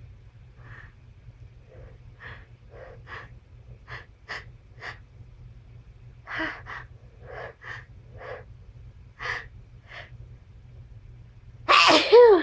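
A person's sneeze build-up: a series of short, catching gasps that grow louder, then one loud sneeze near the end with its pitch falling.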